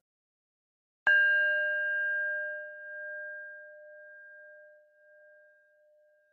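A singing bowl struck once, about a second in. It rings out with a clear, wavering tone that pulses as it slowly fades.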